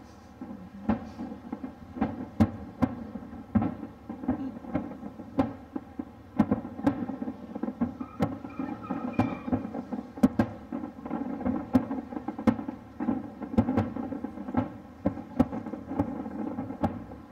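Fireworks display heard across open water: an irregular string of sharp bangs, a couple every second, over a continuous thunder-like rumble of bursting shells.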